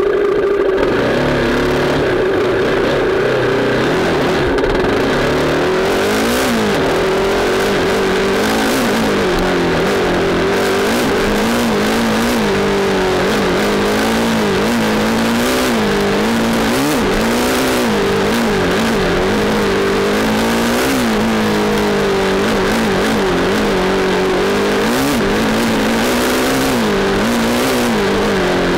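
Dirt bike engine running steadily, its pitch rising and falling every second or two as the throttle is worked, over a steady rushing noise.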